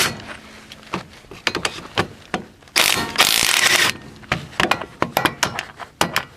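Air impact wrench firing a burst of about a second on the hub's 15 mm bolts, amid irregular metallic clicks and knocks from the wrench and socket being worked into place.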